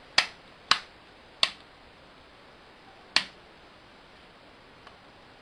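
Four sharp clicks of fingers pressing the buttons and switches on a laboratory hot air oven's control panel: three about half a second apart, then one more about two seconds later.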